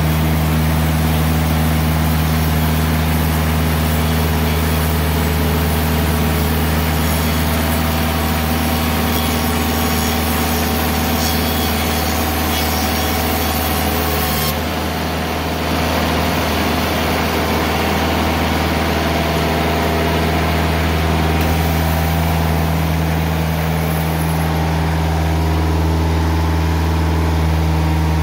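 TimberKing 2020 bandsaw mill running, its engine driving a Kenne-SAW band blade through a log with a steady cutting hiss. About halfway through, the hiss drops off as the blade leaves the cut, and the engine keeps running steadily.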